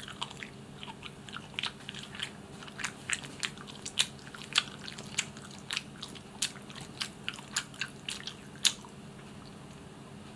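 Close-miked chewing of barbecued chicken: a run of short, wet mouth clicks and smacks as the meat is bitten and chewed, stopping about nine seconds in. A faint steady low hum lies underneath.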